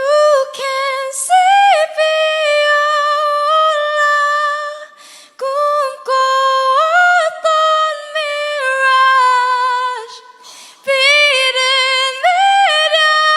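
A woman singing unaccompanied in a high voice, stepping and gliding between sustained notes, with short pauses for breath about five and ten and a half seconds in.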